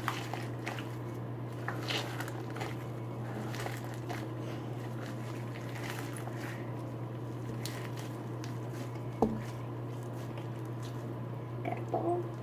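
Homemade fluffy slime squished and kneaded by hand, giving soft sticky squelches and faint crackling pops, with one sharper click about nine seconds in. A steady low hum sits underneath.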